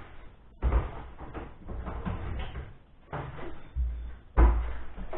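A portable jump starter with a built-in air compressor is pulled out of a plywood cabinet and carried off: a few separate knocks and thumps of cabinet and handling, the loudest about four and a half seconds in.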